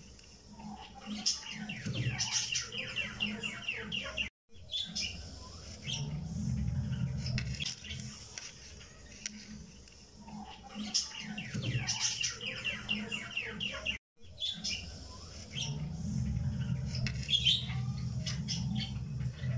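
Looped background track of birds chirping in quick trills over a low steady tone. The same passage repeats about every ten seconds, each time after a brief dropout.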